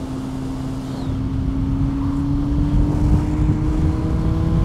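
Yamaha Fazer 1000's inline-four engine pulling steadily under throttle, its pitch rising slowly as the bike gains speed, with wind noise on the microphone.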